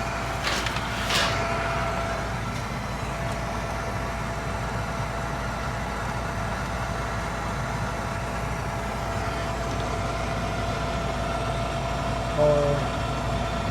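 Gas furnace draft inducer motor running steadily, a constant hum with a faint whine. It is running on its own without the burners lighting, while the control board flashes one flash, the code for an open limit circuit.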